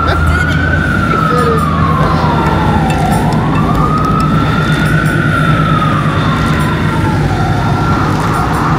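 Emergency vehicle siren on a slow wail, climbing and falling in pitch about twice, over steady city traffic noise.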